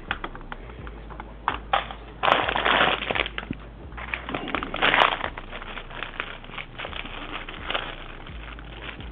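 Packaging crinkling and rustling as it is handled, in two louder bursts about two and five seconds in, with scattered small clicks.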